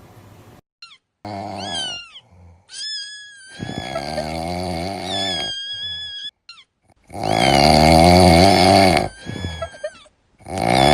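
Snoring: a run of rumbling snores, each with a high whistling note that slides downward. The longest and loudest snore comes a little past the middle.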